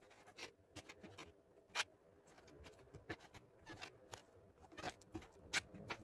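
Kitchen knife chopping mushrooms on a cutting board: irregular taps of the blade striking the board, the loudest about two seconds in.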